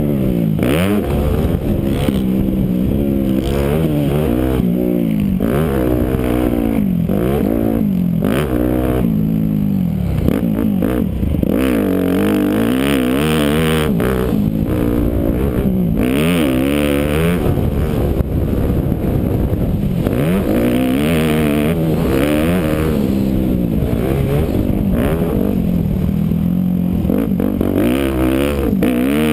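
Yamaha YZ250F motocross bike's four-stroke single-cylinder engine, heard from the rider's helmet, revving up and falling off again and again as it is ridden hard around the track, its pitch climbing and dropping every second or two.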